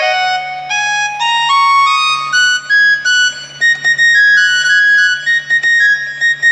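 Casio electronic keyboard test-played with a flute-like voice: single notes climbing step by step up a scale, then a quicker tune of higher notes. A faint low hum runs underneath.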